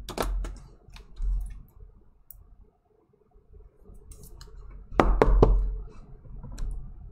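Trading card and clear plastic sleeve being handled as the card is slid into the sleeve: soft clicks and rustles, with a cluster of sharper clicks and low thumps about five seconds in.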